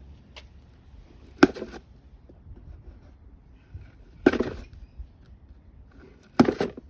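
Cardboard parts box being forced open by hand: three sharp, short tearing noises about two seconds apart.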